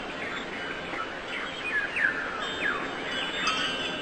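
Small songbirds chirping: quick, short falling chirps several times a second over a steady background hiss.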